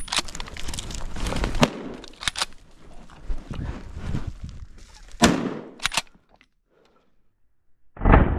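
Crunching footsteps and brush noise in snow, then a few sharp clicks and a short hush. About eight seconds in comes a single loud rifle shot, its report rolling away for a couple of seconds.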